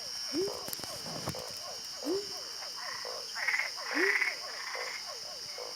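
A chorus of frogs calling. A low, rising croak repeats about every two seconds over many quicker, higher calls, with a louder burst of calls about three and a half to four seconds in, and a steady high-pitched drone behind.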